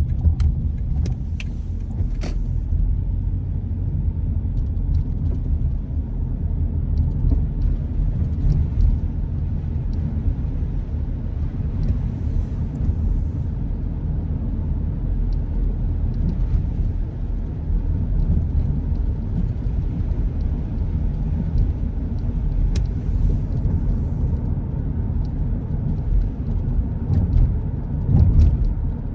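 Car driving: a steady low road-and-engine rumble, with a few faint light ticks scattered through it.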